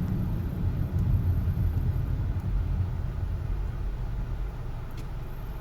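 Low, steady rumble of a 2006 Honda CR-V's engine and drivetrain heard from inside the cabin, easing off a little toward the end as the car comes to a stop. The intermittent rattle the owner is chasing is not sounding.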